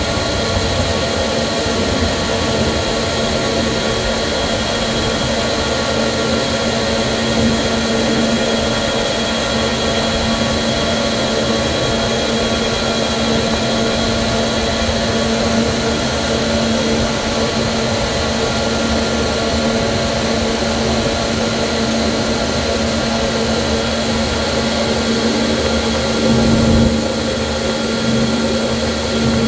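Steady cockpit noise of a Boeing KC-135R Stratotanker in flight: the drone of its CFM56 (F108) turbofans and the rush of air over the nose, with a few steady tones on top. It swells briefly about 27 seconds in.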